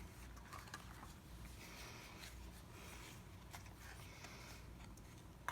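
Near silence with faint paper rustling as a handmade journal's paper tags are handled.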